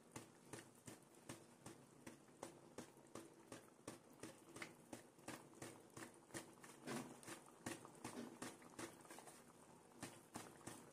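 Thick chickpea-curry gravy simmering in a kadhai, its bubbles popping faintly in an irregular patter of soft clicks, several a second.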